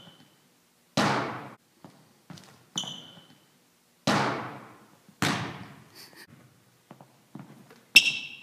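Basketball bouncing on a hardwood gym floor: a string of separate thuds, several of them loud, each ringing out in the large hall. Sneakers squeak briefly on the floor about three seconds in and again near the end.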